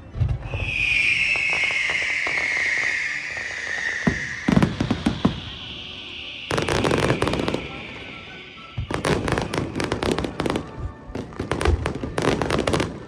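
Fireworks display: a long high hiss that slowly falls in pitch over the first few seconds, then repeated runs of rapid crackling pops and bangs.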